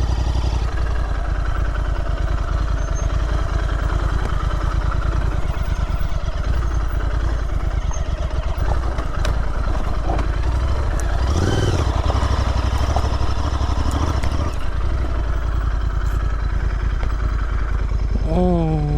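Royal Enfield Interceptor 650's parallel-twin engine running steadily under the rider, with a short swell in pitch a little past the middle.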